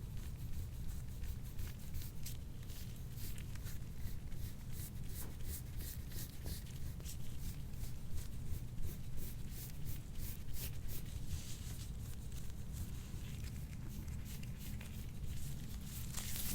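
Soft scratchy rustling of hands rubbing and pressing over skin and clothing during soft-tissue work, over a steady low hum.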